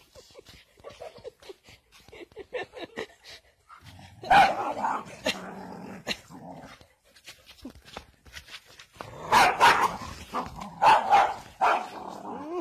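A dog barking and snarling as it fights a hen. After a few faint sounds there is a loud harsh burst about four seconds in, and a run of bursts from about nine seconds on.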